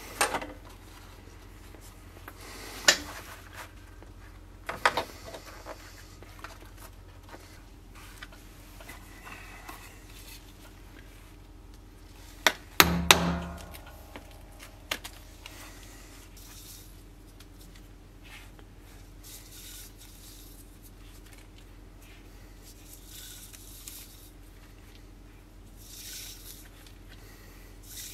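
Tools being handled and set down on a wooden workbench during leatherworking: scattered clicks and knocks, the loudest a double knock with a dull thud about halfway through, between quiet rubbing and handling sounds.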